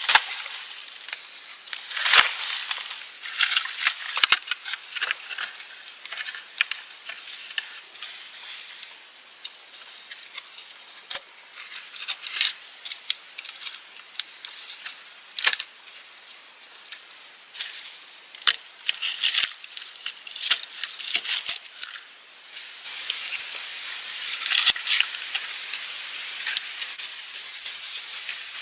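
Irregular crisp crackling and rustling, many sharp little clicks coming in clusters over a faint hiss, busiest near the start, in the middle and near the end.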